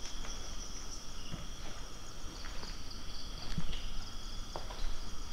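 Night insect chorus of crickets: a steady, high trilling that goes on without a break. A few faint, short clicks and knocks come at roughly one-second intervals.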